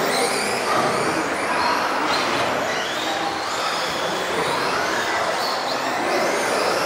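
Several electric off-road RC buggies racing at once, their motors whining in overlapping glides that rise and fall in pitch as the drivers throttle up and back off.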